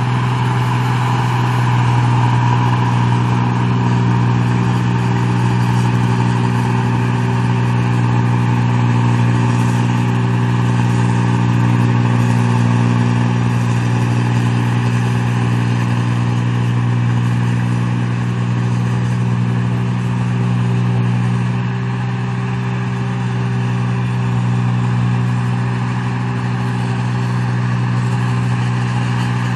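Engine of a rice machine (mesin padi) running steadily at constant speed, a loud, even low hum with no change in pitch.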